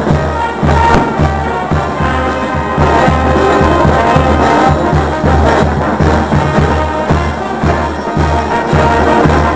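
A brass band playing live: sousaphones and trumpets over bass drums and snare drums, with a steady, even beat.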